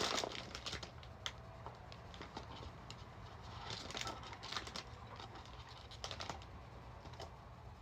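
Hands handling packaging: scattered light clicks, taps and rustles in short clusters a few seconds apart.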